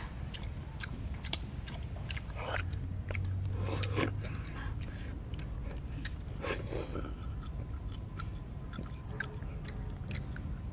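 People eating cooked field snails: wet sucking slurps as the meat is drawn out of the shells, with chewing and many small clicks of shell and picking stick.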